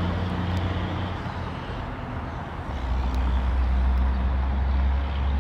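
Low engine rumble of a large motor vehicle, steady at first and growing louder about three seconds in.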